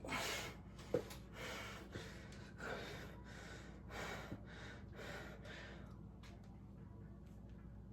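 A person breathing hard from exertion, with quick, heavy in-and-out breaths that ease off about six seconds in. A sharp click about a second in.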